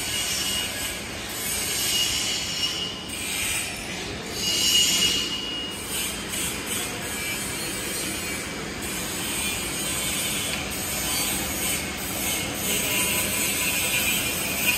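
TIG welding on a stainless steel pipe joint, heard as a steady hiss under shop noise. A high squealing tone comes and goes, clearest about two and five seconds in.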